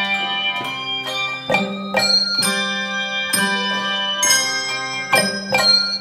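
Handbell choir playing a tune: bells struck singly and in chords about once or twice a second, each note ringing on under the next.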